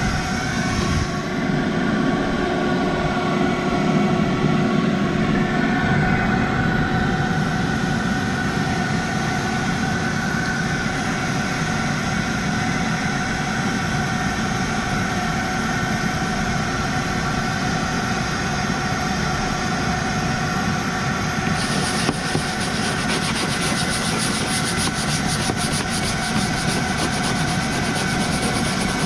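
Steady mechanical running noise: a low rumble with a few steady tones that holds level throughout. About three-quarters of the way through, a high hiss joins it abruptly.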